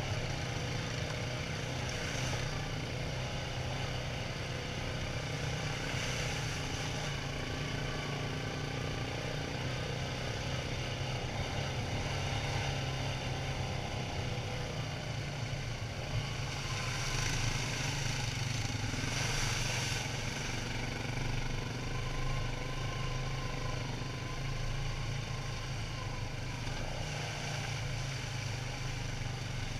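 Quad ATV engine running steadily under way, a low even drone, with two brief swells of rushing noise past the middle.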